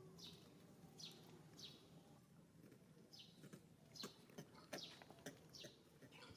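Faint, short high-pitched chirps, each falling in pitch, repeating irregularly about once or twice a second, with a few soft clicks between them.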